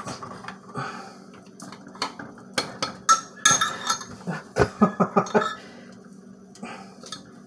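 A spoon knocking and clinking against a metal pot as melting rebatched soap is stirred. There is a quick run of sharp clinks, some ringing briefly, that thins out after about five seconds.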